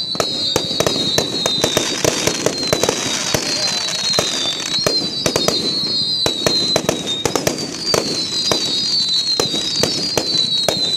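Fireworks going off in a dense, irregular barrage of sharp bangs and pops, with a high whistle that falls in pitch repeating roughly every two seconds.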